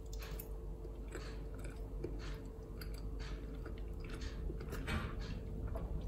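A person chewing a mouthful of soft, stodgy carrot mug cake, with short irregular mouth noises.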